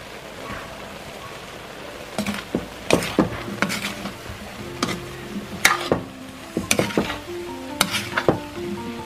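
Mud clams, crinkle-cut potatoes and carrots sizzling in a wok. From about two seconds in, a metal spatula stirs them in irregular strokes that scrape and clink against the pan. Background music plays underneath.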